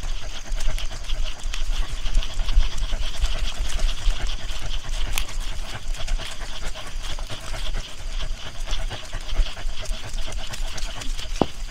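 A dog panting steadily, in quick even breaths.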